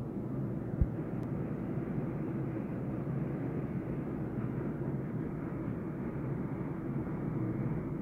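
Steady rushing rumble of a heavy thunderstorm, with downpour and strong wind. A single brief low thump comes about a second in.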